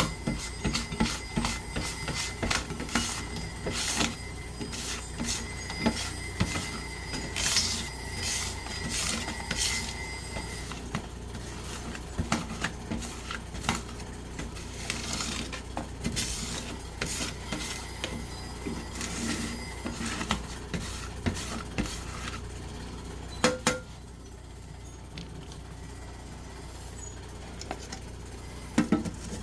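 Irregular scraping and clattering of a scraper clearing rock-saw mess, with a faint steady high tone in the first ten seconds. There is a sharp knock about 23 seconds in, and the sound is quieter after it.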